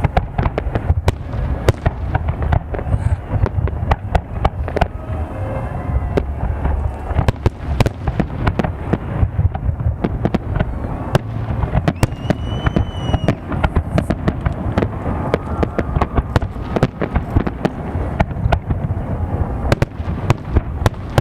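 Fireworks display: a dense, unbroken series of bangs and crackles, several a second, over a constant low rumble.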